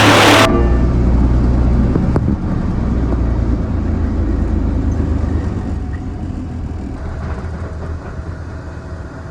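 A loud hissing noise cuts off abruptly about half a second in, giving way to the low, steady drone of a Freightliner semi truck's diesel engine running, which slowly gets quieter.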